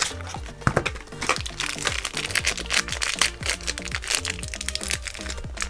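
Plastic packaging crinkling and small plastic clicks as a toy blind crate is opened and handled, over background music.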